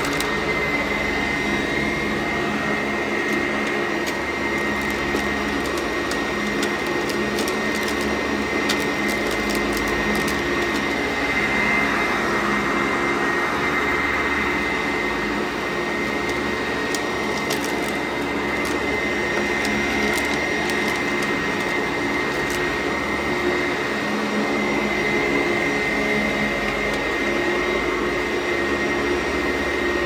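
Two Sanitaire upright vacuum cleaners running together while pushed over carpet: a steady motor drone with a high, even whine over it.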